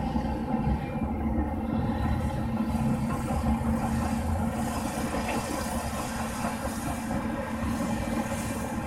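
Heavy diesel engines of a Caterpillar D11 dozer and wheel tractor scrapers working during push loading, a steady low rumble with a constant drone.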